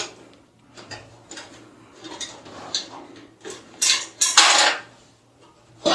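Thumbscrews being unscrewed by hand from the back of a PC cabinet: small metallic clicks and scrapes, with a louder, longer scrape a little after four seconds in.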